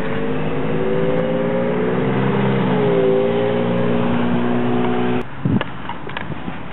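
Motor vehicle engine running close by, its pitch rising a little and then dipping about halfway through, cutting off suddenly after about five seconds. A few short knocks follow near the end.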